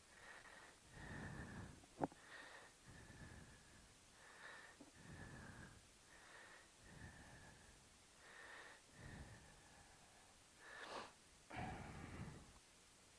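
A person breathing close to the microphone, soft in-and-out breaths about every second or so, with a single sharp click about two seconds in.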